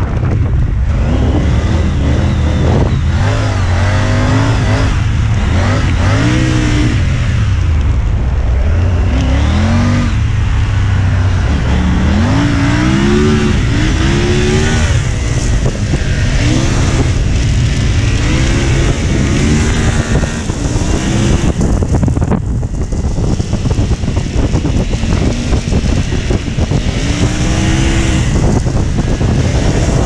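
Triumph Tiger 900 Rally Pro's three-cylinder engine under way on sand, revving up and easing off again and again, its pitch climbing and then dropping with each surge.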